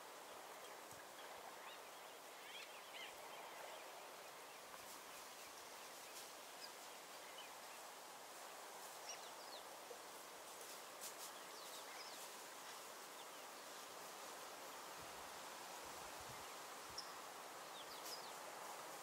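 Faint bush ambience: a steady background hiss with scattered short, high bird chirps and a few faint clicks.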